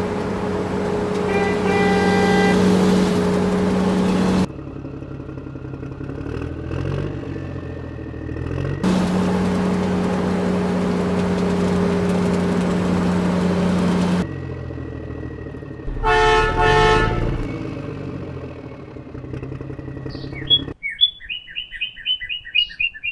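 Small electric motors of RC toy vehicles whirring with a steady hum, in two long runs of about five seconds each, with quieter whirring between them. A short horn-like honk comes about two-thirds of the way through, and rapid high chirping starts near the end.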